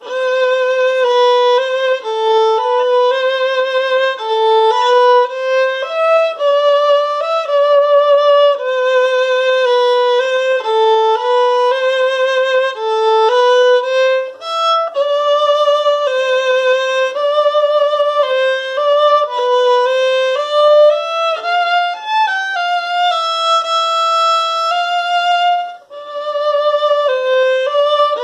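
Solo German violin, bowed, playing a single melodic line of held notes with vibrato in its middle register. A little after the middle the line slides upward, and the playing breaks off briefly about two seconds before the end.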